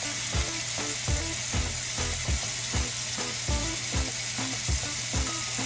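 Raw ground bison sizzling in hot avocado oil in a stainless steel skillet over a gas flame: a steady frying hiss.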